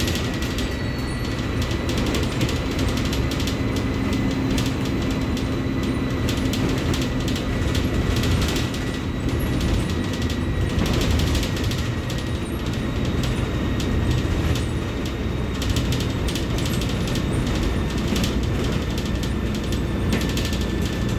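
Mercedes-Benz OF-1721 Bluetec 5 bus's diesel engine running steadily, with frequent clicking and rattling from the bus body and fittings over it.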